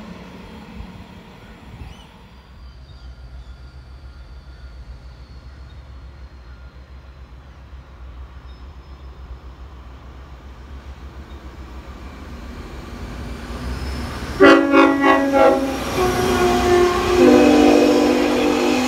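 Queensland Rail Spirit of Queensland diesel tilt train approaching with a low rumble that builds, then sounding its multi-tone horn: a first blast about three-quarters of the way in and a second, longer one near the end as it passes through the station.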